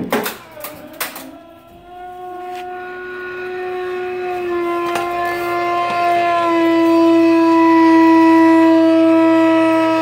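Passenger-side hydraulic ram of a low-rise car lift giving a loud, steady pitched tone as it extends under the car's load, after a couple of knocks as the lift starts. The tone grows louder over several seconds and drops slightly in pitch twice. The noise comes only on the way up under load and is the sign of a defective ram, which the manufacturer replaced.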